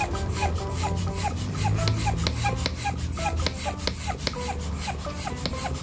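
Plastic hand balloon pump worked in quick, even strokes, rasping on each push and pull as it inflates a balloon.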